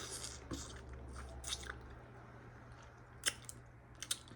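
A person chewing food with open-mouthed smacking: a scatter of small wet smacks and clicks, one sharper about three seconds in.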